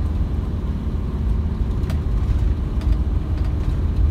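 Fiat-based camper van driving on a narrow road, heard from inside the cab: a steady low engine and road rumble with a faint hum. There is one light click about two seconds in.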